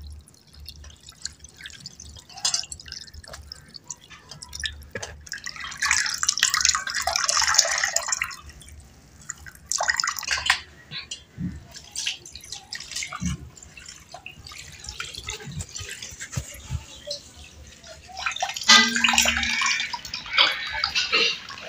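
Water splashing and dripping as fresh paneer curds in a muslin cloth are rinsed of the vinegar used to curdle the milk, then the cloth is wrung and water streams out into a steel strainer and bowl. There are bursts of splashing about six to eight seconds in, again around ten seconds, and a longer stream near the end, with light handling clicks between.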